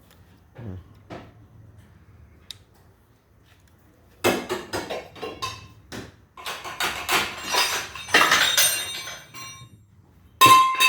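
Metal parts clinking and rattling as a worn exhaust variable-valve-timing gear is handled and fitted onto the camshaft, with clusters of sharp clicks. Near the end comes one loud metallic knock with a brief ring. The gear's worn centre pin leaves it with a lot of play.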